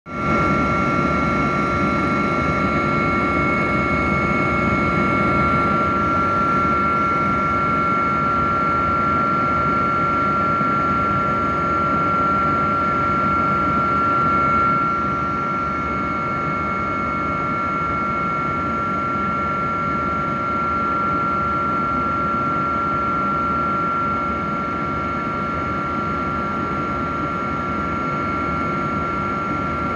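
Helicopter cabin noise in flight: a steady engine and rotor drone with a constant high whine, easing off slightly about halfway through.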